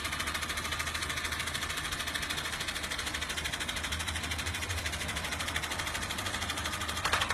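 A sheet of paper stuck to the front of a running electric desk fan, flapping and rattling fast and evenly in the airflow over the low hum of the fan.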